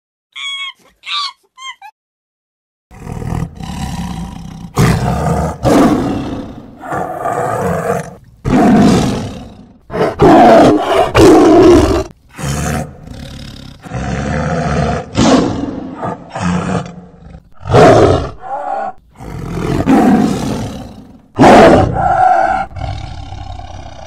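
Tiger roaring and growling in a long series of loud calls, each a second or two long with short pauses between. In the first two seconds, before the roaring starts, there are a few short high squeaks.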